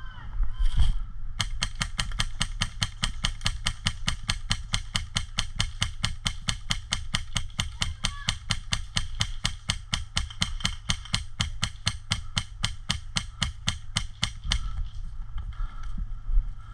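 A knock, then a rapid, even run of sharp clicks, about five a second, that stops near the end.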